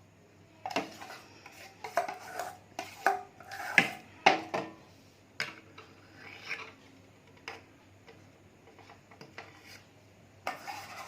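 A metal spoon clinking and scraping irregularly against a glass dish while scooping and spreading thick whipped dalgona coffee. The strokes come thick and fast in the first half and grow sparser after that.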